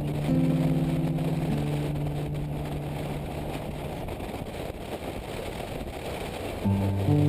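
Motorcycle riding noise, a steady low rush of engine and wind, heard under background music. The music holds its notes for the first few seconds, drops out, and comes back near the end.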